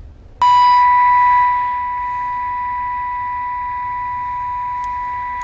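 Uniden Grant XL CB radio's speaker sounding a steady, single-pitch test tone received from a signal generator. The tone comes on abruptly a little under half a second in and drops somewhat in loudness about a second later.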